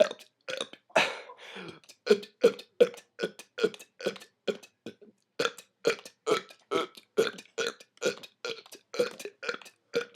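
A man burping in rapid succession for a burp-count record, short, evenly spaced burps about two to three a second, broken once about a second in by a short noisy stretch.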